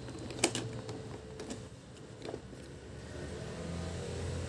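A few faint clicks and light handling noise from a robot vacuum's plastic housing being worked at by hand, over a low steady hum.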